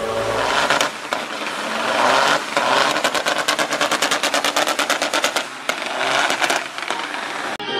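Semi truck doing a burnout: its diesel engine running hard while the dual rear tyres spin. It comes as a fast, even rattling pulse that drops out briefly a few times.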